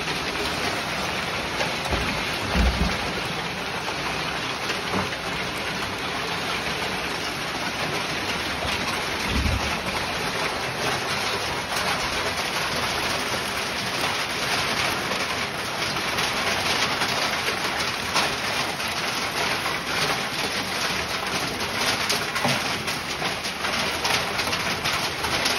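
A heavy downpour of rain and hail, a dense steady hiss speckled with fine ticks of hailstones striking wet concrete and grass. A brief low thump comes about two and a half seconds in, and another about ten seconds in.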